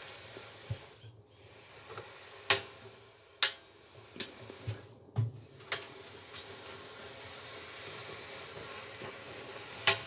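Simpson clothes dryer drum turning with a steady rushing hiss and low hum, broken by a few sharp clicks or knocks at irregular intervals. It is an unfamiliar noise the repairer has never heard from one of these dryers and is trying to locate.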